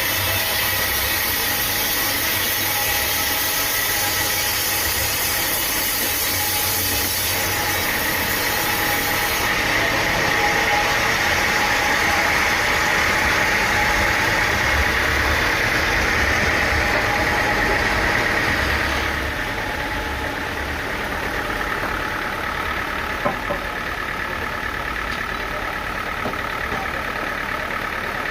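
Engine-driven sawmill machinery running steadily. About two-thirds of the way through the level drops a little and the high hiss fades, and a single sharp knock comes a few seconds later.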